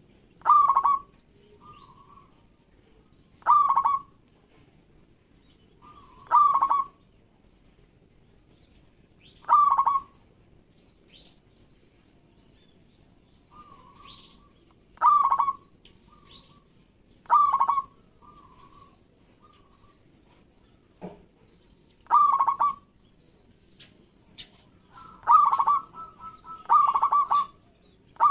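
Zebra dove cooing: a short, quick run of cooing notes repeated about every two to three seconds, with a longer pause in the middle and calls coming closer together near the end.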